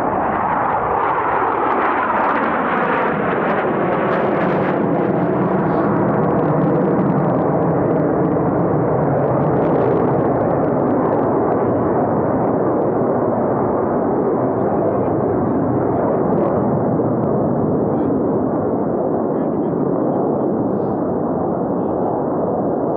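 Four Blue Angels F/A-18 Super Hornet jets flying a formation loop: a loud, continuous jet engine roar, with a tone dropping in pitch over the first two seconds.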